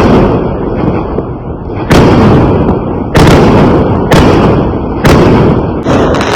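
Fireworks exploding in a steady barrage: a loud bang roughly every second, about six in all, each trailing off in a rumbling echo.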